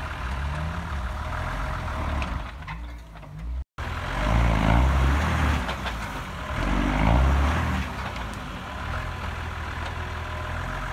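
Engine of a lifted Jeep Cherokee on oversized mud tyres revving up and down in repeated surges as it works through deep snow, loudest twice in the middle, about four and seven seconds in. The sound cuts out for an instant just before the first surge.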